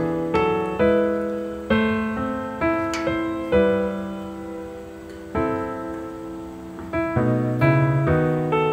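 Slow piano background music: single notes and chords struck one after another, each left to ring and fade.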